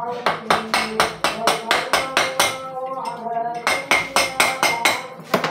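A hammer striking the cylinder block of a Honda Vario 150 scooter engine in quick repeated blows, about four or five a second, with a short pause a little past halfway, to knock the block loose from the crankcase. Background music plays underneath.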